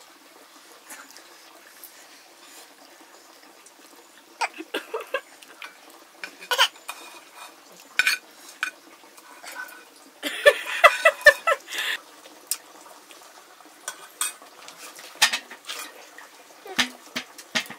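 Cutlery and dishes clinking now and then, as with eating from plates or bowls. A short pitched vocal sound about ten seconds in is the loudest thing.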